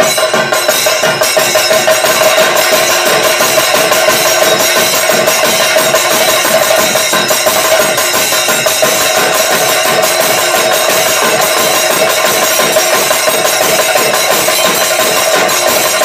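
An ensemble of chenda drums playing thayambaka, many sticks striking the drumheads in a dense, fast, unbroken rhythm over a steady ringing tone. This is the idavattam phase of the thayambaka.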